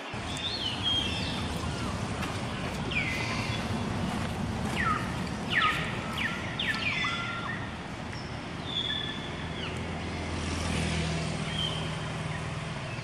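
Outdoor ambience: a steady low rumble of distant traffic, with an engine hum swelling about ten seconds in. Over it come a string of short, high chirps that fall in pitch, scattered through the first eleven seconds.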